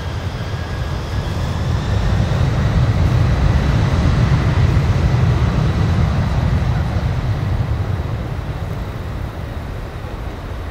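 Boeing 747-400 freighter's four turbofan engines at high thrust on its takeoff roll, a deep rumble that swells to its loudest about midway as the aircraft passes and then fades.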